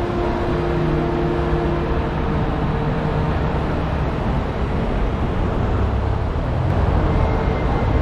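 Steady rumble of road traffic, with vehicle engines running and growing a little louder near the end.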